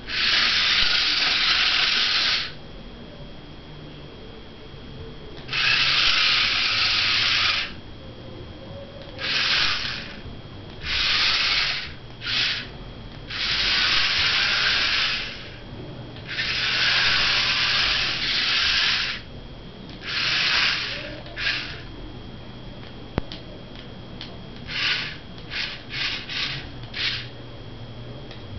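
Small DC motors of a homemade radio-controlled car whirring in bursts as the car is driven on and off: several runs of one to three seconds, then a string of quick short blips near the end.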